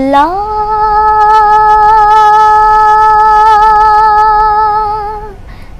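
A solo singer's voice holding one long sung note: it slides up at the start, is held steady with a light vibrato for about five seconds, and stops shortly before the end. It is the opening note of a devotional song.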